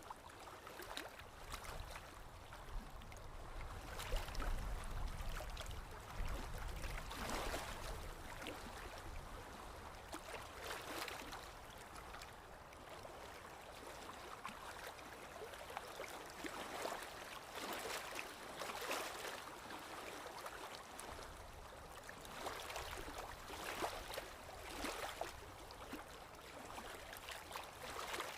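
Water gurgling and splashing irregularly, a steady wash of running water with frequent small splashes. A low rumble sits under it for a few seconds near the start.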